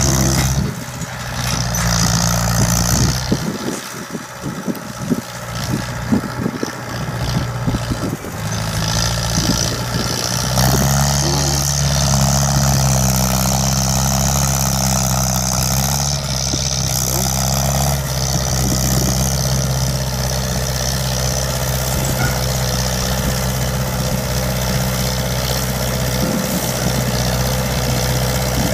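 Shibaura SD4000 tractor's diesel engine running hard while it pulls a trailer loaded with rice sacks across a muddy rice field. The engine note is uneven for the first several seconds, then steadies and strengthens about ten seconds in.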